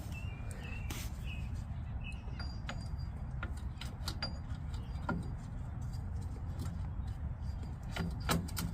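Scattered light clicks and taps of brake parts being handled as a new rear brake wheel cylinder is fitted into place, over a steady low rumble.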